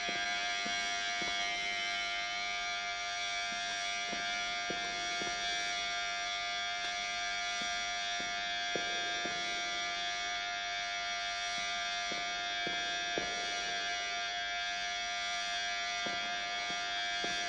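Electric hair clippers buzzing steadily as they shear a man's head close. A few faint clicks are scattered through the buzz.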